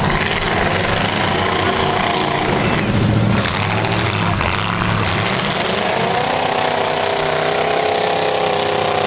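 Demolition derby cars' engines running hard under throttle, one revving up about six seconds in and holding high.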